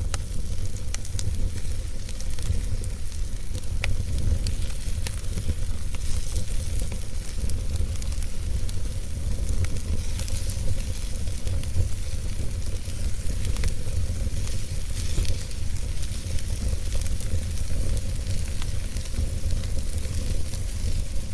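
Wood fire crackling in a fireplace, with many scattered sharp pops and snaps over a steady low rumble.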